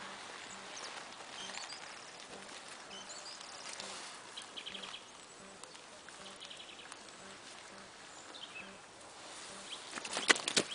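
Wild birds chirping and trilling in the background at the lake edge. About ten seconds in, a short burst of sharp splashing as the padded carp sling holding the fish is lowered into the water for release.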